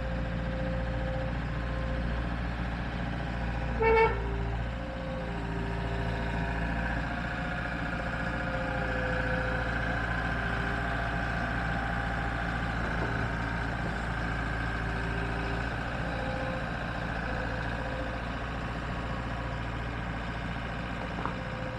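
Skid loader engine running steadily, with one short horn beep about four seconds in.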